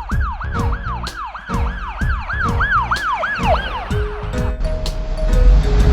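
Ambulance siren sound effect: a fast yelp rising and falling about three times a second, fading out about three and a half seconds in, over background music.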